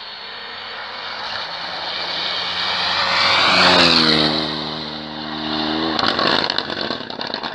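Rally car at full throttle approaching, passing close by and pulling away, its engine note dropping in pitch as it goes by. Near the end there is a run of sharp crackles.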